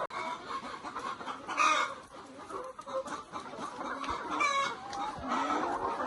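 Chickens clucking, a series of short calls with a louder squawk about one and a half seconds in.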